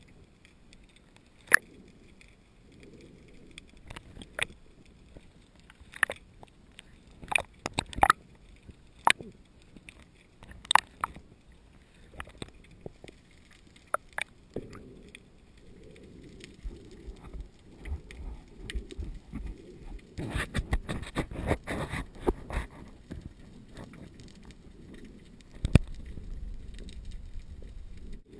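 Underwater ambience picked up by a submerged camera: a low murmur of water with sharp single clicks and knocks every second or two, and a spell of dense crackling about twenty seconds in.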